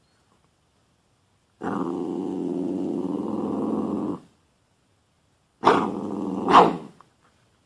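A dog growls steadily for about two and a half seconds, then after a pause gives a shorter growl that breaks into two sharp, louder outbursts.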